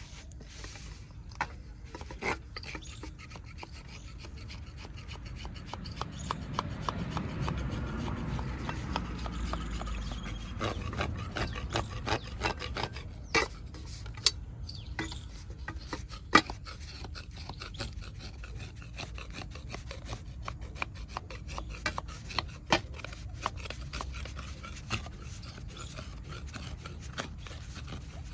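A dry clay kulhad cup being broken and crumbled: a gritty rasping crunch full of small sharp cracks, with a few louder snaps in the middle and near the end.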